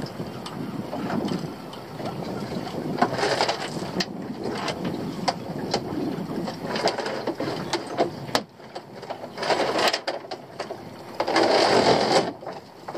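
Wind buffeting the microphone over choppy sea water slapping against a small open boat, with scattered knocks and clicks from rope and gear being handled. The loudest gust comes near the end.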